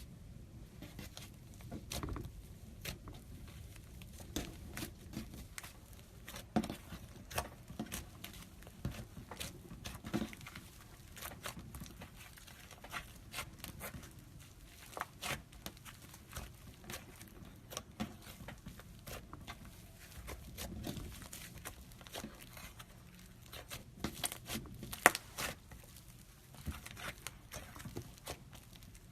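Slime squeezed and worked by hand: irregular sticky clicks and crackling pops, with one sharper, louder pop a few seconds before the end.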